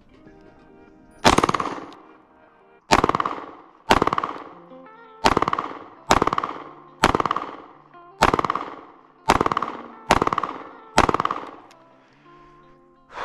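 Smith & Wesson M&P Shield Plus 9mm subcompact pistol fired ten times in slow succession, about one shot a second, each report trailing off before the next.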